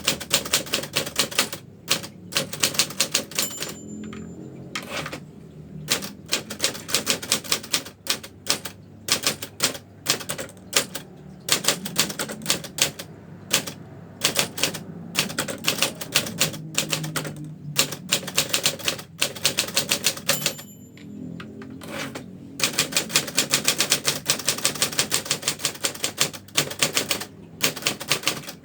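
Brother manual typewriter being typed on: fast runs of sharp key and typebar strikes, broken by a few short pauses. A brief ringing tone sounds twice, about 3 s and 20 s in, each just before a pause in the typing.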